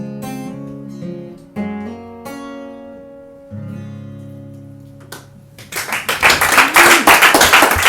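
Acoustic guitar picking the song's closing notes, with a last chord about three and a half seconds in that rings out. Audience applause breaks out near the end and is the loudest sound.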